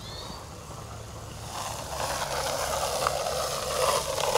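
Handheld crank seed spreader scattering white clover seed over a food plot: a fine hiss and patter of seed landing that starts about a second and a half in and grows louder.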